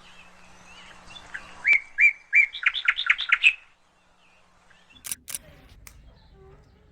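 A songbird singing one short phrase of clear, repeated notes that come faster toward the end, followed about five seconds in by a few sharp clicks.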